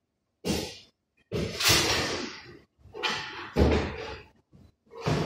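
A run of sudden clunks and rattles, like hard objects being set down and moved about on a workbench, four or five in all. The loudest is about two seconds in, and a heavy knock comes a little past three and a half seconds.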